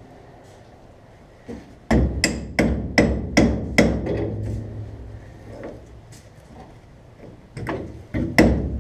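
Hammer blows with a metallic ring, in quick runs: about six strikes roughly two or three a second starting about two seconds in, then a pause, then another run near the end. The hammering drives suspension parts into place during a leaf spring and rear axle install.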